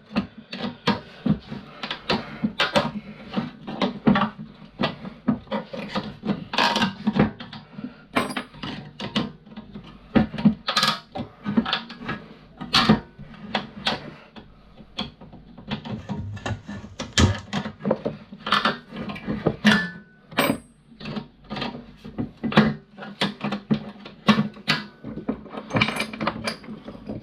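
Irregular clicks, knocks and scrapes of a flathead screwdriver working small brass grounding terminals out of a fuse board, with a few louder knocks along the way.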